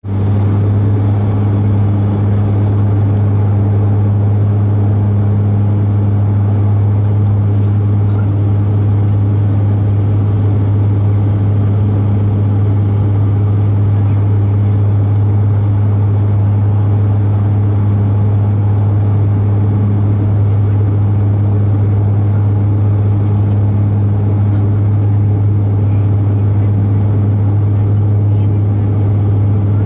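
Cabin drone of a Bombardier Dash 8 Q400's Pratt & Whitney PW150A turboprops, heard from a seat beside the engine during the descent to landing: a steady low propeller hum with a fainter tone an octave above it, over a rush of engine and airflow noise.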